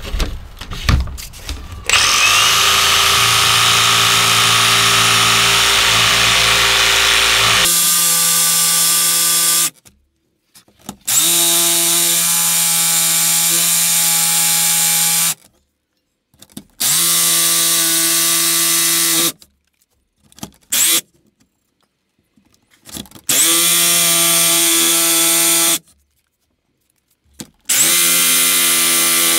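Milwaukee cordless jigsaw cutting a rectangular opening in a wooden cabinet panel. It makes one long cut of about eight seconds, then several shorter runs of a few seconds each with pauses between, the motor briefly winding up in pitch at the start of each run.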